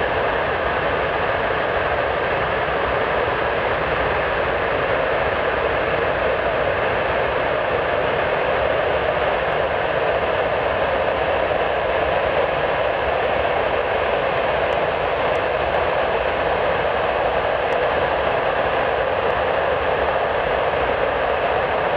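Avro Vulcan's Rolls-Royce Olympus turbojets running at a steady setting during a ground engine test, a continuous loud rushing roar with no change in level.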